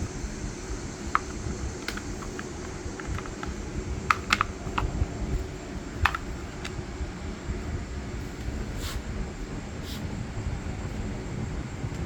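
Scattered light clicks and taps of metal parts being handled as a new chain is fitted onto a Ryobi pole saw's bar, with a small cluster of taps a little past the middle, over a steady low rumble.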